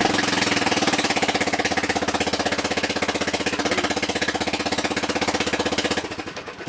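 Briggs & Stratton 17.5 HP Intek vertical-shaft engine running with no muffler: loud, fast, even exhaust pulsing. About six seconds in the seat kill switch is released, the engine is cut and it starts winding down.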